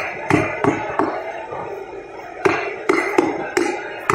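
Knife chopping through catfish onto a thick wooden chopping block: a few sharp chops in the first second, a pause, then a quicker run of five or so chops from about halfway.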